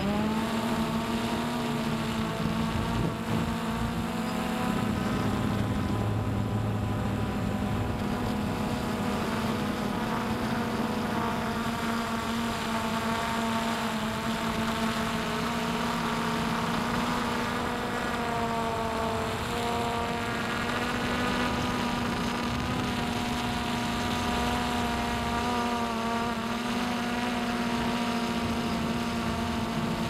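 Multirotor drone's electric motors and propellers humming steadily, heard from the drone's own camera, with a steady low tone and several higher whining tones that shift slightly in pitch about two-thirds of the way through as it manoeuvres.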